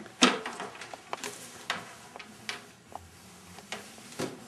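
Pen tapping and scratching on paper on a wooden table: a string of short, irregular clicks and ticks, the loudest about a quarter second in.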